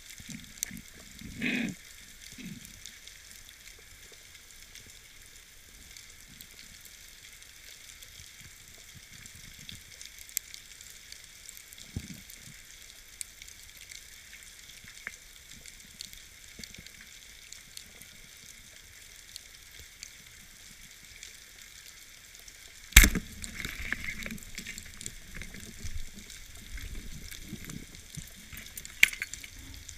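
Underwater ambience heard from inside a dive camera housing: a steady crackling hiss of many tiny clicks. A sharp, loud crack comes about three-quarters of the way through, followed by a few seconds of louder low rumbling noise.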